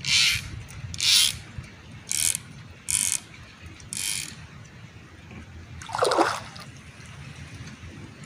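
A series of short water splashes, about one a second, then a louder splash about six seconds in.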